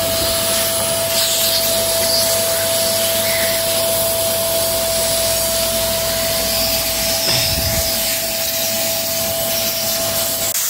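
Vacuum cleaner running steadily, sucking through a length of hose fed into a car's fuel tank. It has a constant whine over its rushing noise and stops abruptly near the end.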